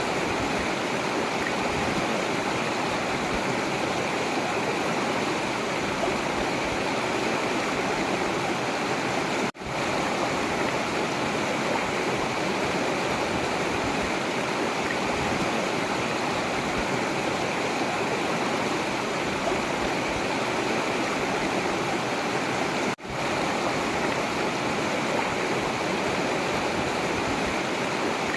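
Forest river water flowing and rushing steadily, cutting out for an instant twice.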